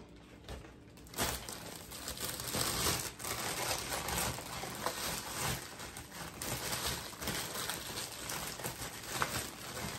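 Thin plastic Halloween treat bag crinkling and rustling as hands rummage through it, starting about a second in and going on as an uneven rustle with many small crackles.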